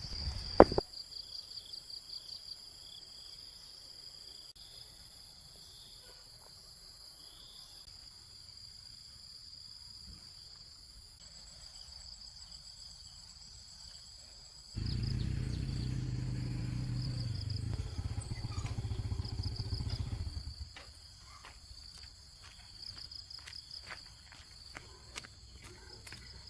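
Insects chirping steadily in several high-pitched tones. About fifteen seconds in, a low rumble starts suddenly, lasts about six seconds and then fades; faint clicks follow near the end.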